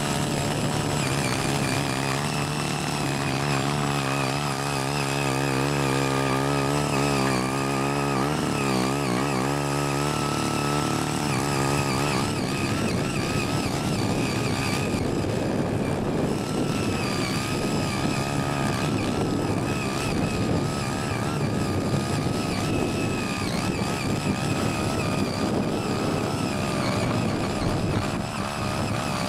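Small petrol engine of a walk-behind rotary tiller running steadily under load as its tines churn into hillside soil. Its pitch wavers up and down and the sound turns rougher about twelve seconds in.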